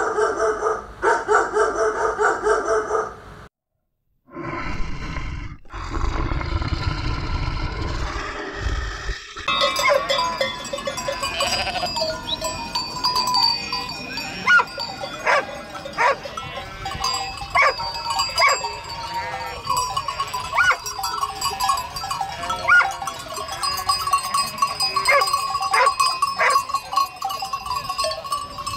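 A large flock of sheep bleating, many voices overlapping, from about ten seconds in. Before that there is a few seconds of another pitched animal call, a moment of silence, and a low rumbling passage.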